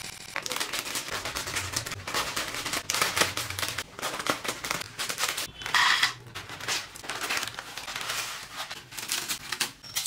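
Plastic snack packets crinkling and rustling as they are emptied, with dry crunchy snacks and potato chips pouring into a bowl and being crushed by hand: an irregular run of crackles with a louder burst about six seconds in.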